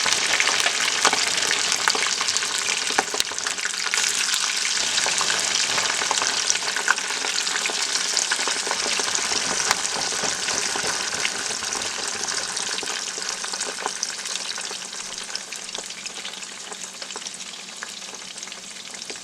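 Crinkle-cut French fries frying in hot oil, just dropped in: a steady, dense sizzle with scattered crackles and pops that slowly dies down.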